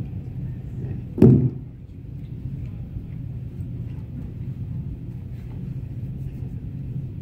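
Steady low room rumble, with one short thump about a second in.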